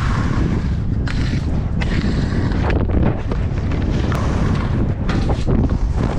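Wind buffeting an action camera's microphone as a skier runs down slushy summer snow. Under the low rumble, the hiss and scrape of the skis on the snow swells and fades.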